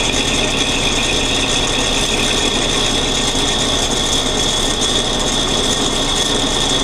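A small metal lathe running, with a tap in its chuck cutting serrations into a bolt that is pressed against it and turned by it, hobbing the bolt. A steady grinding, rasping run with a steady high whine over it.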